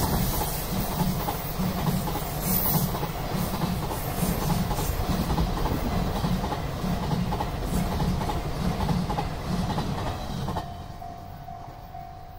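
24 series sleeper coaches passing close over a level crossing, their wheels beating a steady clickety-clack of about two beats a second on the rail joints, with the crossing's warning bell ringing throughout. About ten seconds in the train noise falls away sharply.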